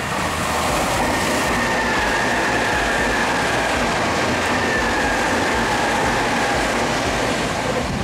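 Nankai 3000 series electric commuter train running past at speed, a loud steady rush of wheels on rail. A thin high tone runs through it, drifting slightly lower in pitch.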